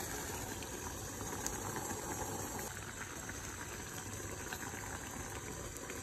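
Water boiling in a stainless steel saucepan: a steady bubbling with many small pops.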